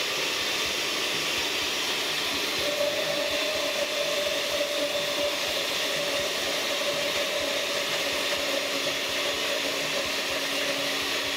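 Oster countertop blender running steadily, blending a thick egg-white and oat batter, a continuous motor whir with a steady hum setting in about three seconds in.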